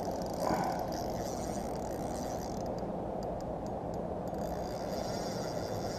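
Fishing reel ticking and whirring under load from a hooked fish, over a steady low rumble.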